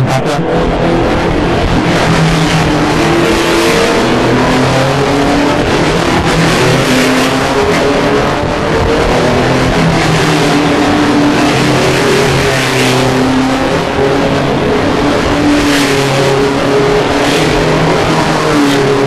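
Racing touring cars' engines running hard at speed, their notes rising and falling in steps through the gears.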